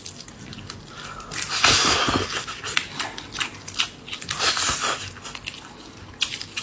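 Close-miked eating: a person biting and chewing crunchy food, with many sharp crackling clicks and two louder crunching or slurping stretches, one about a second and a half in and one about four and a half seconds in.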